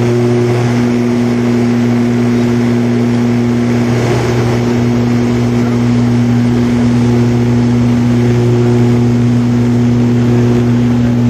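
ATR 72 turboprop airliner heard from inside the cabin at takeoff power: the propellers drone steadily as a loud low hum with overtones, over a constant rush of engine and air noise.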